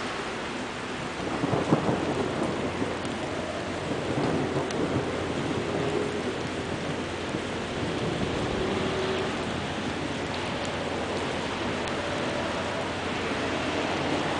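Steady rain falling on standing floodwater, a continuous hiss, with a louder low rumble about a second and a half in.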